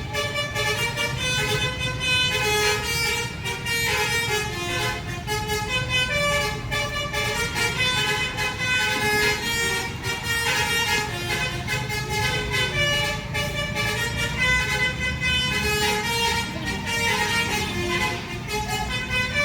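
Bus's musical horn playing a tune: a fast run of short pitched notes, one after another, over a steady low rumble.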